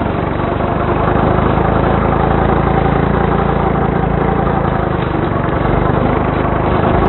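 Small go-kart engine running steadily.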